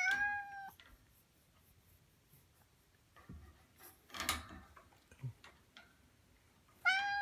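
Orange tabby cat meowing twice: a steady, drawn-out meow at the start and another near the end. In between come a soft rustle and a few light clicks, the loudest about four seconds in.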